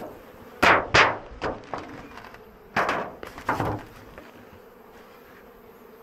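A wooden beehive being closed up, with a handful of sharp knocks and thuds from the boxes and lid in the first four seconds. Honeybees hum steadily throughout.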